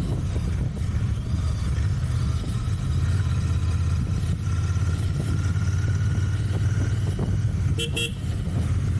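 Royal Enfield Continental GT 650's 648 cc parallel-twin engine running through its stock exhaust while riding at a steady pace. A short horn beep sounds near the end.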